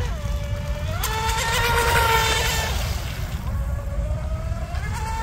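RC mono speedboat's brushless electric motor whining at speed across the water. The whine jumps up in pitch about a second in, is loudest around two seconds, fades, then rises again near the end as the boat comes back, over a steady low rumble.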